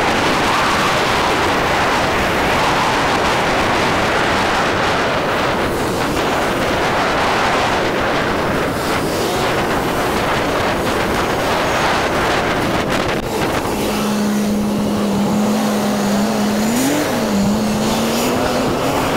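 Wind rushing over the microphone, with road and engine noise, from a motorbike riding at speed through traffic. About two-thirds of the way through, the wind drops away and a steady low engine hum comes through as the bike slows. The hum's pitch briefly rises and falls near the end.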